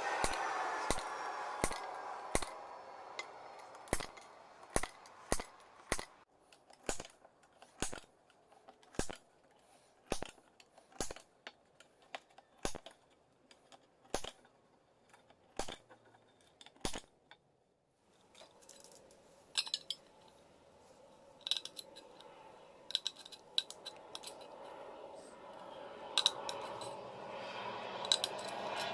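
A thin tin can being flexed and twisted by hand gives a series of sharp metallic clicks, about one a second, with a short pause about two-thirds of the way through. The later clicks have a brief light ring.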